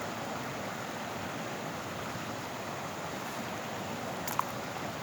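Steady rushing of fast-flowing river water, with a single brief click about four seconds in.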